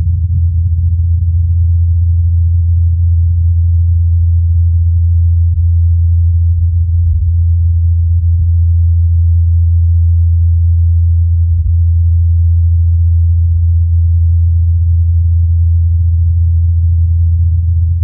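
Low, steady hum of NASA's Ingenuity Mars helicopter's rotors in flight, recorded on Mars by the SuperCam microphone on the Perseverance rover. The pitch holds even and does not rise or fall.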